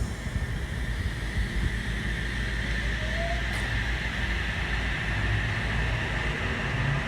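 Train at the station: a steady low rumble under a steady high whine, with a short rising whine about three seconds in.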